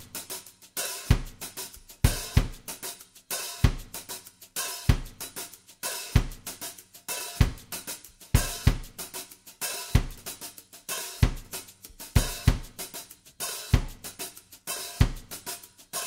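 Background music carried by a drum kit: a steady beat of hi-hat and cymbal ticks, with a heavier drum hit roughly every second and a quarter.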